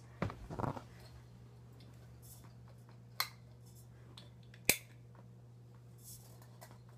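Faint handling noises over a low steady hum: a short rustle and scrape in the first second, then two sharp clicks about a second and a half apart.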